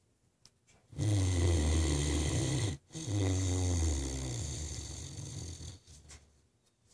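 Great Dane snoring: two long snores, the first about a second and a half, the second about three seconds and fading out near the end.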